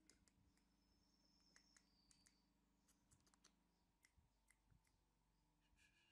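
Near silence: room tone with faint scattered clicks.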